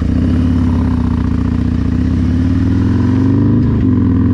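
Harley-Davidson Milwaukee-Eight V-twin with an S&S 475 cam, running through a Bassani mid-length 2-into-1 exhaust as the bike accelerates away from a stop. The engine pitch rises steadily, dips at an upshift about three and a half seconds in, then rises again.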